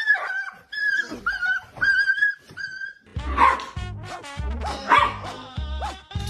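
A dog giving a string of short, high, whining calls on much the same pitch. About three seconds in, music with a steady deep beat joins, and the dog's yips and calls go on over it.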